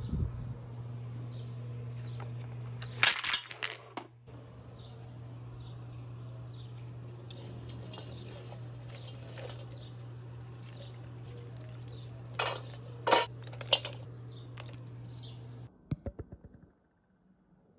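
Sharp metallic clinks and rattles of chunks of aluminum dross being handled in a steel pan, in two short clusters, a few seconds in and again a few seconds before the end. A steady low hum sits underneath and cuts off near the end.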